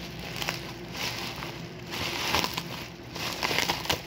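Bubble-wrap packaging crinkling and crackling as it is handled and pulled open, with sharper bursts of crackle about halfway through and near the end.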